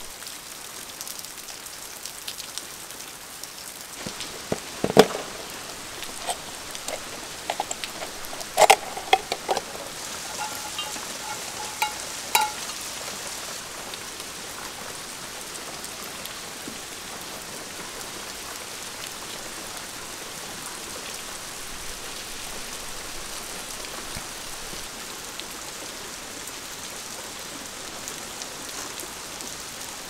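Steady hiss of falling water, with a few knocks and short ringing clinks between about four and twelve seconds in.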